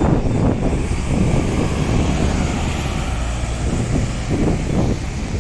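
Steady low rumble of city road traffic, with a couple of brief swells, one about four seconds in.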